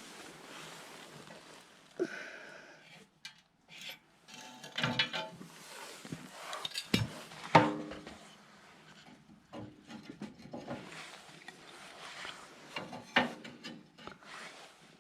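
Irregular knocks, clicks and rubbing of wooden and metal items being handled, like dishes and camp gear being moved about, with a sharper knock about halfway through.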